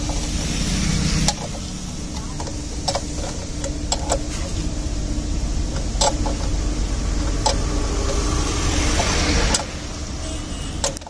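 A vehicle engine running steadily with a low rumble, with a handful of short, light metallic clicks and taps from the tool on the air filter's centre nut as the new element is fitted.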